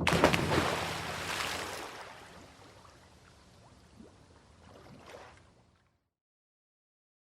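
Splash of a body diving into water: a burst of spray that fades away over about two seconds, followed by a few faint gurgles as the water settles.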